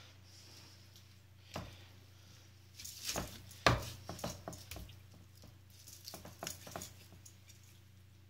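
A cleaver cutting through raw chicken legs on a wooden chopping board: a few sharp knocks of the blade striking the board, the loudest a little under four seconds in, among softer handling and cutting sounds.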